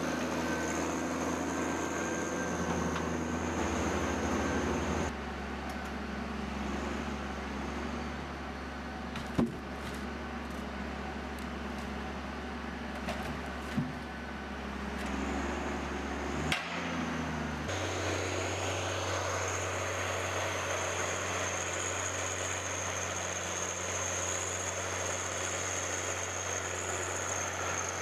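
Heavy machinery engine running steadily with a high whine. The sound changes abruptly twice, and there are a few sharp knocks in the middle.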